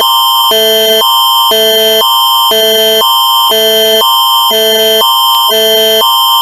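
Canadian Alerting Attention Signal, the Alert Ready emergency tone: a loud electronic chord that switches between a higher set and a lower set of tones every half second over one steady high tone. It announces an emergency alert, here a tornado warning.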